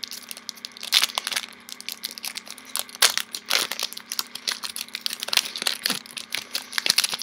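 Foil Yu-Gi-Oh booster pack wrappers crinkling and cards being handled as packs are opened and sorted: a steady run of irregular sharp crackles and rustles.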